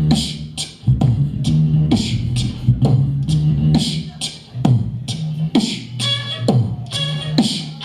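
Human beatboxing: a steady beat of mouth-made percussive hits over a held, hummed low bass line. About six seconds in, a higher pitched vocal melody joins.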